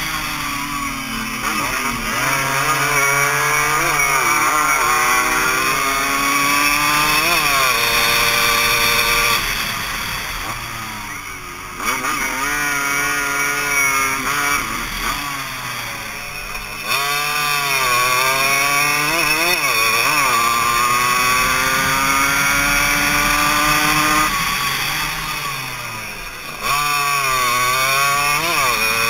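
Suzuki AX100's two-stroke single-cylinder engine, heard from on board, revving hard through the gears: the pitch climbs, steps down at each upshift, and falls away as the bike slows for corners about ten, fifteen and twenty-five seconds in before climbing sharply again.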